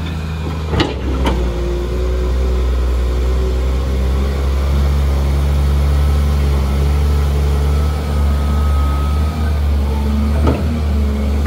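Caterpillar 330D2 excavator's diesel engine running steadily under load while it digs and swings. Sharp knocks twice about a second in and once more near the end.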